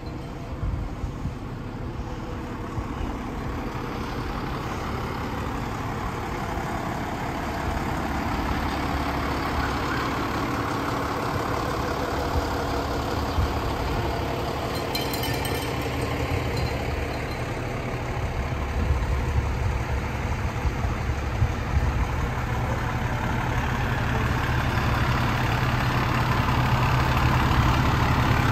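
Diesel engines of fire trucks idling with a steady low hum that grows louder toward the end.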